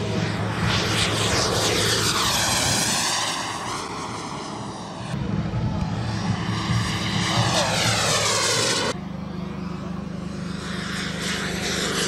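Model jet turbine of a large-scale English Electric Lightning flying past, its whooshing jet noise sweeping in pitch with a phasing effect on each pass. The sound changes abruptly twice, about five and nine seconds in, as passes are cut together.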